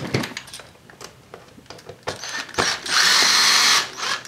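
Cordless drill-driver running for about a second, driving a small screw into a plastic enclosure, after a few light clicks and knocks as it is handled.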